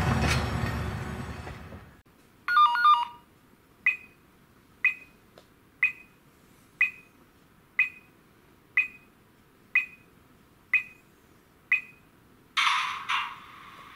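Sound decoder of a PIKO H0 EU07 electric locomotive model, heard through its small speaker. The running sound fades out over the first two seconds, then comes a short cluster of chime tones, then nine short pings about once a second. Near the end a louder hissing burst with a steady tone under it begins.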